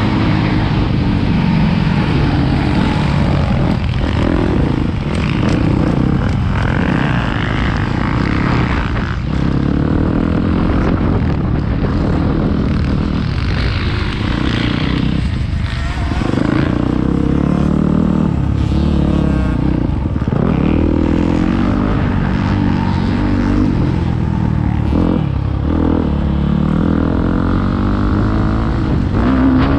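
KTM 250 SX-F single-cylinder four-stroke motocross bike ridden hard, the engine revving up and down through the gears and dropping off briefly each time the throttle is closed, several times across the lap.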